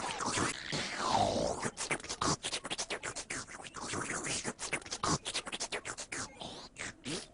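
Rapid turntable-style scratching: short chopped sounds, several a second, with quick rising and falling pitch sweeps.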